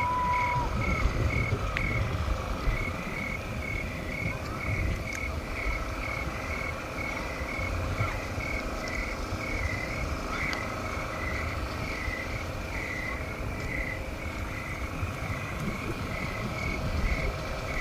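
A frog calling over and over, short croaks repeating evenly about twice a second, over a steady low rumble.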